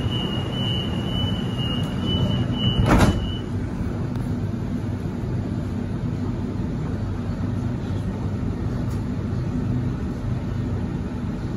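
Sliding passenger doors of a CRRC-Downer B-set train carriage closing: a high-pitched door warning tone sounds, then stops as the doors shut with one loud thud about three seconds in. A steady low hum from the stationary train carries on afterwards.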